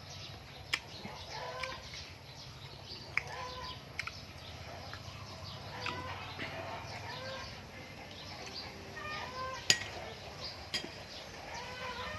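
Birds calling: short, arched calls repeated every second or so. Several sharp clicks fall among them, the loudest about two-thirds of the way through.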